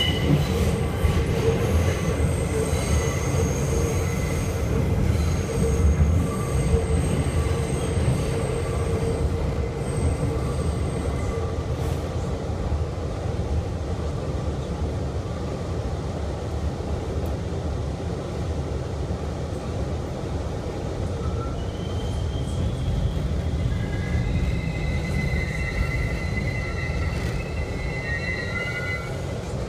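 New York City subway train heard from inside the car, running through the tunnel with a steady rumble of wheels on rail and thin high-pitched whines. Over the last several seconds high metallic squealing from the wheels rises as the train slows into a station.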